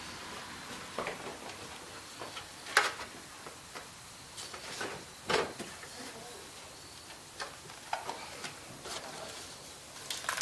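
Irregular clicks and knocks of plastic car parts being worked loose by hand, an air duct being popped off its clips; the two loudest snaps come about three and five seconds in.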